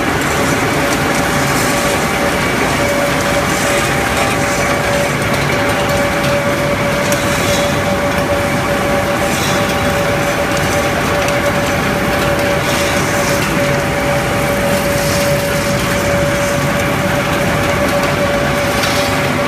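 Wood pellet mills running with a loud, steady drone and one even tone, over a constant crackle of freshly pressed wood pellets dropping onto a conveyor belt.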